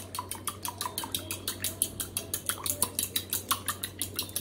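Metal fork whisking an egg mixture in a glass bowl, clinking against the glass in a fast, even rhythm of about seven strokes a second.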